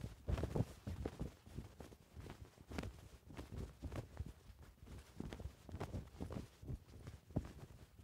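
A flag flapping in a light wind: irregular soft flutters and snaps at uneven intervals over a low wind rumble, with the strongest flaps about half a second in and a sharp one near the end.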